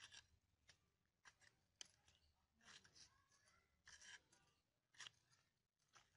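Flat green bean pods being sliced against the upright blade of a boti, the Bengali floor-mounted cutting blade: faint crisp snips, about ten of them, some in quick pairs.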